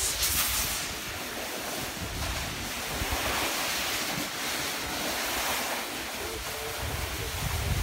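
Wind rushing over the microphone while moving downhill, with the hiss of edges scraping over packed snow that swells about half a second in and again from about three to five and a half seconds.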